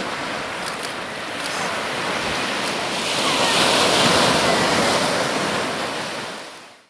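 Small ocean waves breaking and washing up onto a sandy beach. The surf swells loudest about halfway through, as a wave breaks close in, then fades out near the end.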